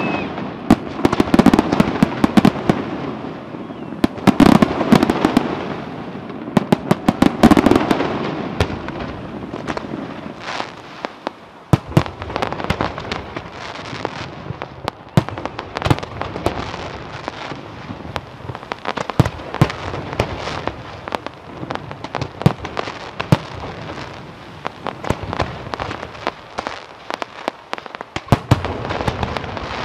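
Scarsella aerial fireworks display: shells bursting in a dense run of bangs and rumbling booms for the first several seconds, then many scattered sharp cracks and pops from crackling stars, with the bursts growing denser again near the end.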